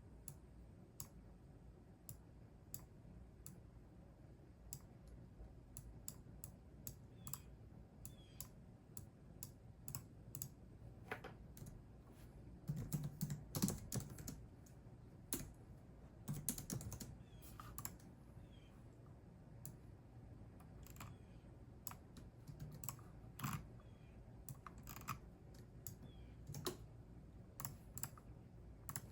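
Computer keyboard typing: separate keystroke clicks at an uneven pace, with a couple of faster, louder flurries about halfway through.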